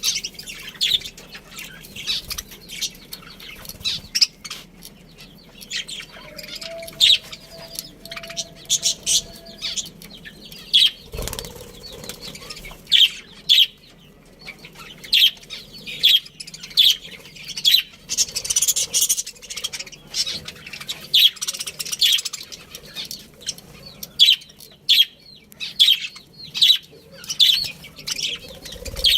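A flock of budgerigars chirping and twittering rapidly and continuously, many short high calls overlapping, with one dull thump about eleven seconds in.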